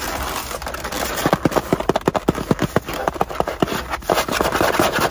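Styrofoam takeout box handled close to the microphone: a fast run of squeaky creaks over rustling.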